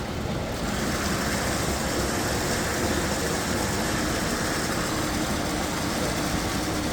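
An engine running steadily, a low hum under a constant rushing noise.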